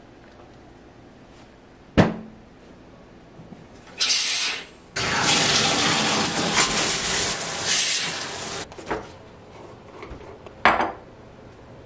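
Shower being turned on: water spraying and running steadily for about four seconds, then cutting off abruptly. A sharp knock comes about two seconds in and another near the end.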